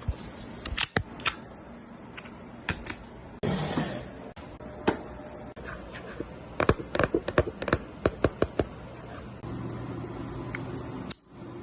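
Sharp plastic clicks from a toy AAP-01 airsoft pistol being handled and worked, scattered at first, then a quick irregular run of about ten clicks a little past halfway. A short rustle comes about a third of the way in.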